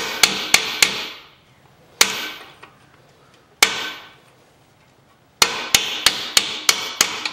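A small sledgehammer strikes a steel socket and extension to drive a new needle bearing into a Yamaha YZ250F swingarm pivot, the socket method used in place of a press. It comes as four quick blows, then two single blows a second or so apart, then a fast run of about eight light blows near the end. Each blow rings briefly.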